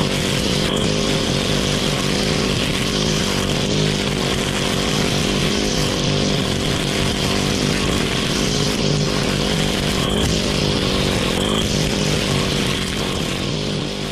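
Freshly overhauled Honda GX35 four-stroke grass cutter engine running steadily at cutting speed as the head cuts through weeds, with a few brief sharp ticks.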